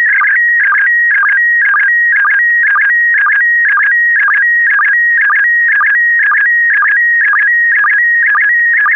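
Slow-scan television (SSTV) picture signal in PD120 mode: a loud, high warbling tone broken by a short lower sync blip about twice a second, each blip marking the start of a new pair of picture lines being sent.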